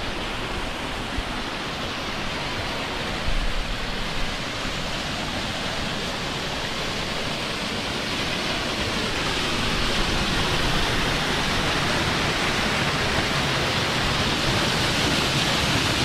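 Waterfall on a spring-fed mountain creek: a steady rush of falling water that grows louder a little past halfway through.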